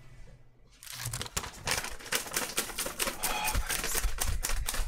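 Rapid clatter of typewriter keys, starting about a second in and getting louder.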